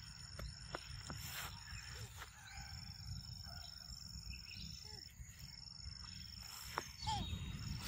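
Forest ambience: a steady high-pitched insect trill that breaks off a few times, with a few faint short calls and scattered small clicks.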